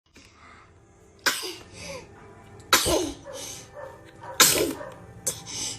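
A baby sneezing three times, about a second and a half apart, each a sharp sudden burst.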